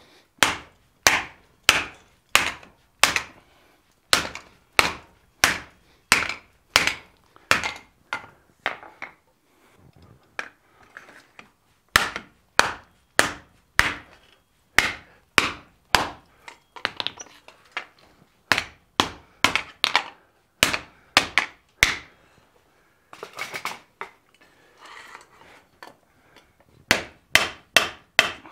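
Hand hammer blows on red-hot fold-formed sheet steel lying on an anvil, sharp ringing strikes at about two a second, in runs broken by a few brief pauses and some lighter blows.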